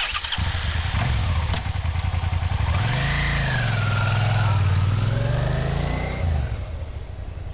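Suzuki street motorcycle engine starting up and running, then revving as the bike pulls away about three seconds in. The engine note drops and fades as it rides off near the end.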